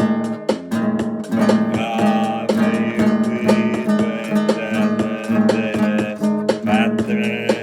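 Music: a rapidly strummed acoustic guitar with a steady rhythm.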